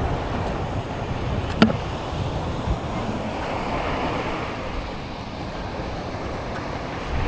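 Surf washing on a sandy beach, a steady rush with wind buffeting the microphone; one sharp click about a second and a half in.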